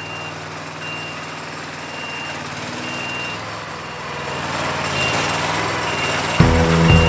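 Reversing alarm beeping, a single high beep about once a second, over a slowly rising rumble. Near the end a much louder low, pitched sound cuts in.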